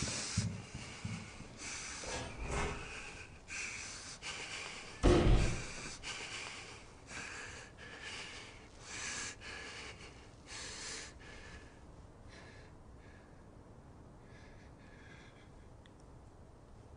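A person breathing hard in short, ragged breaths, about two a second, dying away after about eleven seconds. A heavy thump about five seconds in.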